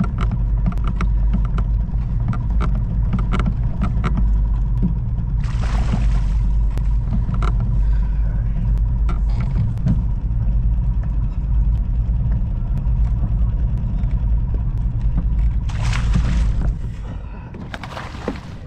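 A boat motor's low, steady rumble that drops away near the end, with a few short hissing rushes and light clicks over it.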